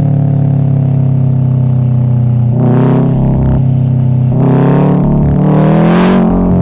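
Subaru WRX STi flat-four boxer engine running with a low steady rumble, its pitch slowly falling as the car coasts. It then revs up in three short throttle bursts, the last the longest and loudest.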